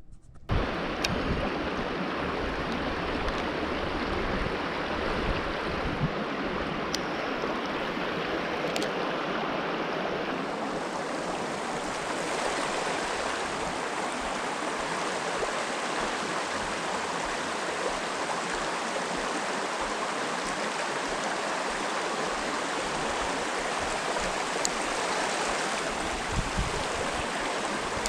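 Creek water rushing steadily over rocks and shoals, a constant hiss that turns brighter about ten seconds in.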